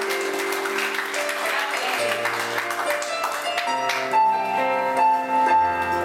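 Electronic keyboard playing sustained chords and held notes, with applause over it during the first couple of seconds.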